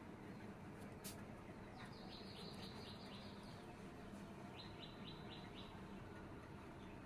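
A bird chirping in two quick runs of short, high, evenly spaced notes, one about two seconds in and another about four and a half seconds in, each lasting about a second and a half. A single sharp click comes about a second in.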